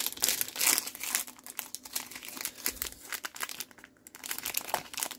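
Crinkly foil wrapper of a basketball trading-card pack being handled and torn open, a dense run of irregular crackles that thins out briefly near the end.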